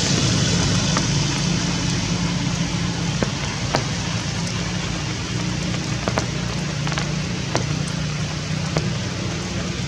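Steady rain falling, with drops ticking sharply on a hard surface every second or so, over a low steady hum.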